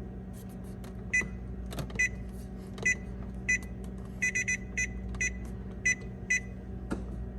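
Electronic control panel of a Frigidaire refrigerator beeping as its buttons are pressed: a dozen or so short, high beeps at irregular spacing, some in quick runs of two or three, over a steady low hum.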